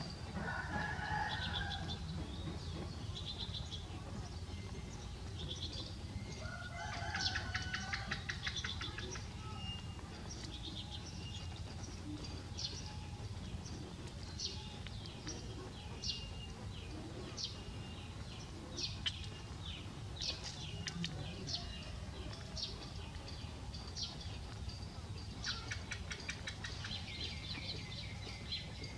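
Small birds chirping over and over in short high notes, with two stretches of a rapid buzzing trill and occasional chicken clucks, over a steady low background rumble.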